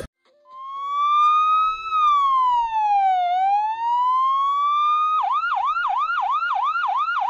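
Electronic ambulance siren. It runs a slow wail that rises, falls and rises again, then switches about five seconds in to a fast yelp of about three sweeps a second.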